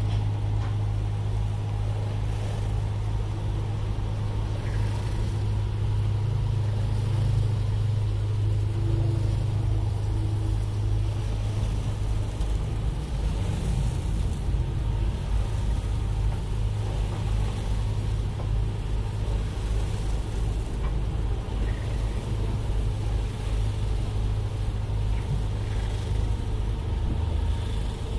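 Truck engine running at low speed, a steady low drone heard from inside the cab, briefly rougher about halfway through.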